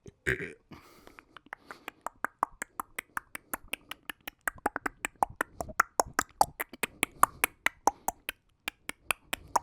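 A man's mouth making a long run of sharp wet clicks and smacks, about four to six a second, after a short throaty sound at the start.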